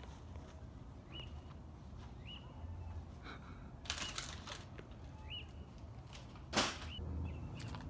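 Faint night ambience over a low steady hum: a short, rising high chirp repeats every second or so, and a few sharp clatters come from parts being handled in the garage, the loudest near the end.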